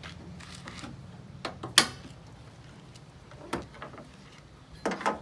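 Bonnet of a 2017 Ford Fiesta being opened and propped: a handful of sharp metallic clicks and clunks from the latch and the prop rod, the loudest a little under two seconds in, with a quick double knock near the end.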